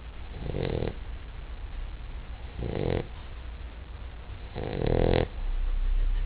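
Basset hound snoring: three rattling snores about two seconds apart, the third the longest and loudest, with a low hum under the end.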